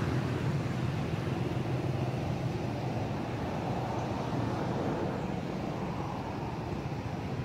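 Steady low rumble of a motor vehicle engine running, unbroken, with a soft hiss over it.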